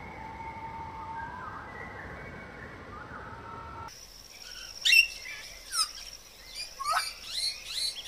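Songbirds calling. The first half holds long, slowly gliding whistled notes. After an abrupt change about four seconds in come sharp chirps that sweep steeply downward, several in a row, over a steady thin high tone.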